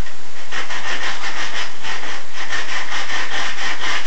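Rapid back-and-forth scraping, about five strokes a second, starting about half a second in: corrosion being scrubbed off a small engine's intake valve.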